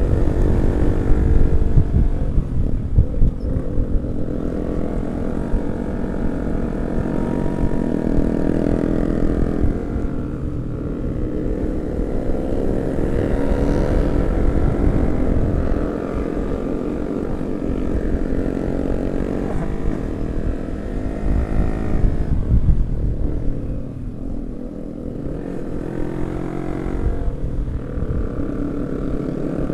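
Yamaha R15 V3 single-cylinder motorcycle engine running at cruising speed, its pitch rising and falling gently as the throttle changes, over a steady low rumble of wind. The engine eases off briefly twice, about halfway through and again a little later.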